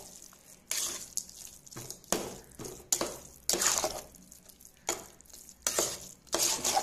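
Perforated metal spoon stirring and scraping a thick, wet mixture of milk-soaked bread, sugar and khoa in a metal pot, in repeated squelching strokes just under a second apart.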